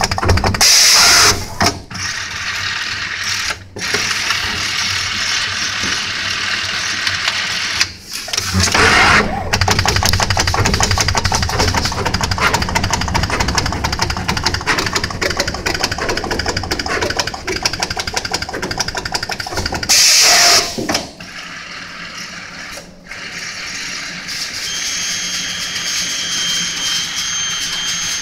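Automatic through-hole component insertion machine running, a steady fast mechanical clatter. Three loud bursts of hiss-like noise, each about a second long, break in, and a faint high whine joins near the end.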